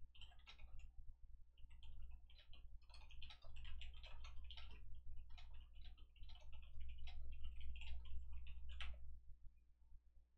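Typing on a computer keyboard: a rapid, irregular run of key clicks that stops about nine seconds in.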